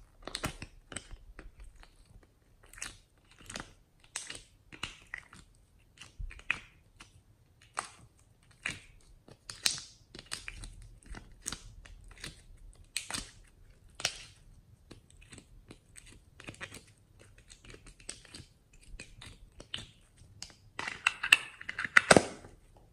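Glossy slime squeezed and pressed by fingers in a small plastic container, making irregular sticky pops and clicks. Near the end a louder, quicker run of crackles comes as the slime is pulled free of the container.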